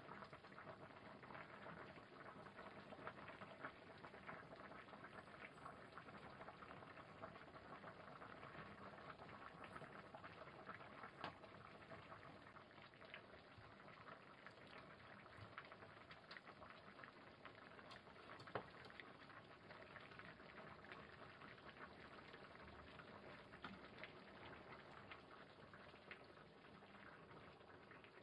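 Faint, steady bubbling of a large pot of vegetable soup simmering on the stove, with scattered small pops and ticks.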